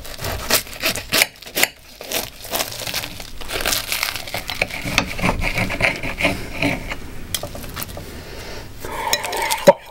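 Knife sawing through a crisp puff-pastry pie crust, the flaky pastry crackling and tearing as the pie is cut in half, with the knife and fork clicking and scraping on the plate. Sharp clicks come in the first couple of seconds and again near the end.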